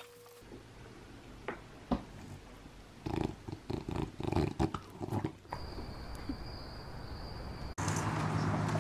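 English bulldog snuffling and eating a treat from a hand: a quick run of short noisy sounds lasting about two seconds. A thin high tone follows, and near the end a louder steady outdoor street noise takes over.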